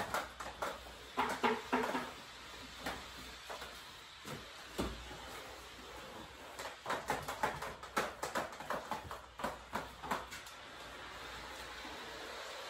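Irregular taps and knocks of a corded steam mop being pushed and swung about over a tile floor.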